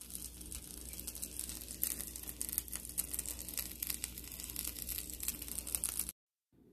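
Omelet sizzling in a frying pan: a steady crackle of many fine pops over a hiss, which cuts off sharply about six seconds in.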